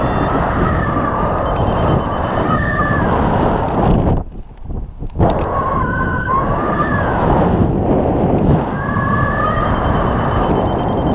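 Airflow buffeting the camera microphone in paraglider flight, with a variometer beeping over it, its pitch sliding up and down. The wind noise drops away briefly about four seconds in.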